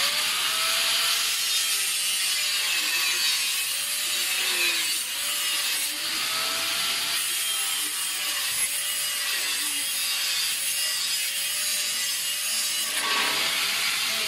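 A saw cutting through wood without a break, a continuous rasping sawing noise with a repeating rise and fall in pitch.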